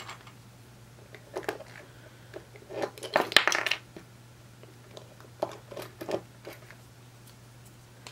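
Scattered small clicks and rustles of hands handling materials and tools at a fly-tying bench, with a denser stretch of rustling a little past three seconds in, over a faint steady low hum.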